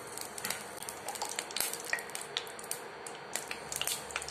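Metal spoon scraping and tapping against a nonstick kadai as spoonfuls of ghee are added, a run of light, irregular clicks.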